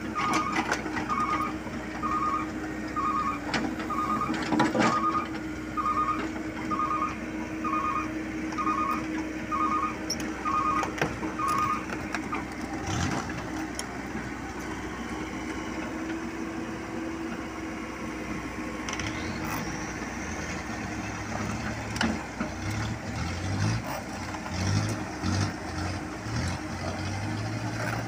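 Komatsu PC78US excavator's diesel engine running while its travel alarm beeps about one and a half times a second, stopping about twelve seconds in, with a few sharp metal knocks. A low uneven throbbing of heavy machinery fills the last part.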